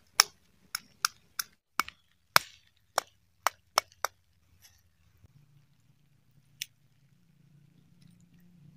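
Half a coconut shell knocking a fire-roasted cashew nut against a wooden plank to crack its charred shell: about ten sharp knocks in quick succession, then a single knock a couple of seconds later.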